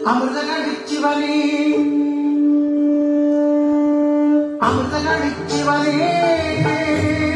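Bharatanatyam dance music: a wind instrument holds one long note, then about four and a half seconds in drums and other instruments come in together.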